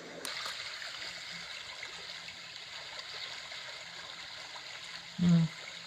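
Homedics SoundSpa Portable sound machine playing its Brook setting: a steady recorded sound of running stream water.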